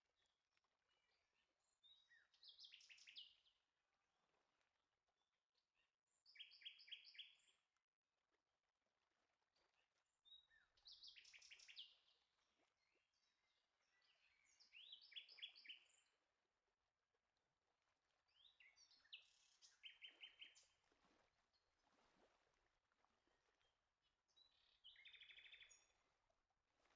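Faint bird song: six short, high trilled phrases repeated every four to five seconds, over quiet background noise.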